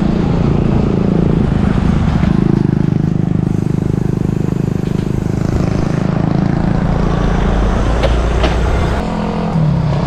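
Steady low rumble of a motor vehicle's engine running close by, heard over wind noise on the microphone of a moving bicycle.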